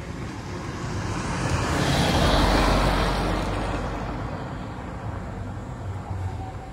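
A car passing on the road, its engine and tyre noise swelling to a peak about two and a half seconds in and then fading as it drives away.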